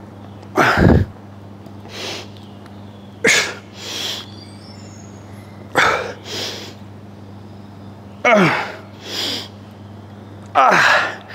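A man breathing hard through alternating dumbbell curls: a sharp exhale on each lift, with some voice in it and falling in pitch, then a softer breath in. This happens five times, about every two and a half seconds.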